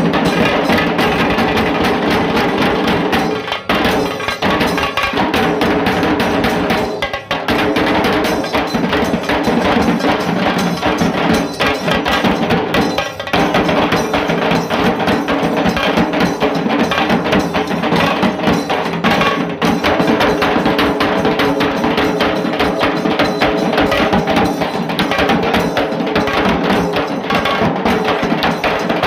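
Dhol tasa band playing loud and dense: fast, sharp tasa drum strokes over dhol drum beats, with a few short breaks in the rhythm.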